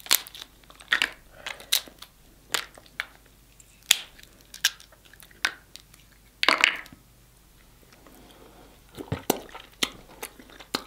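Snow crab leg shells cracking and snapping as they are broken open by hand: a string of sharp cracks with short gaps between them, and a longer crunching burst about two-thirds of the way in.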